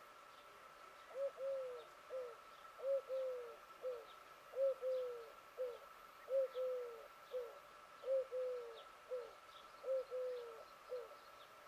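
A dove cooing: a three-note coo, short, long, short, repeated six times at a steady pace.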